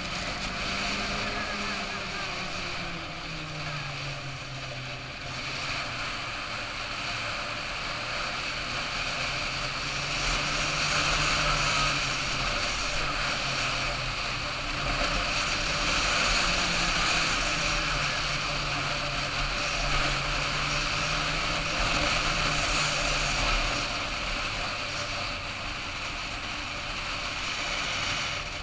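Snowmobile engine running at a steady speed under way, with a strong hiss of wind and track noise over it. Its pitch swells up and back down about a second in, then holds steady.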